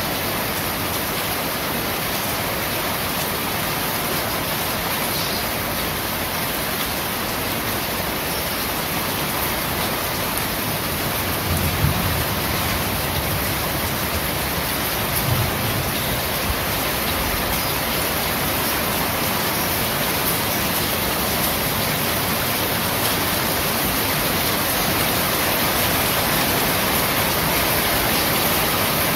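Steady rain falling on corrugated roof sheets, an even hiss, with a brief low thump twice near the middle.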